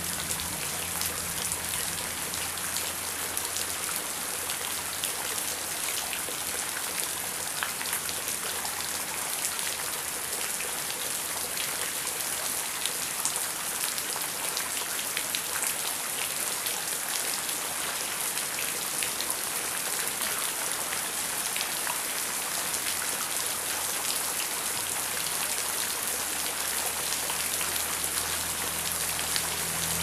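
Heavy rain falling steadily, a dense hiss with many sharp individual drop hits. A low rumble fades in over the last few seconds.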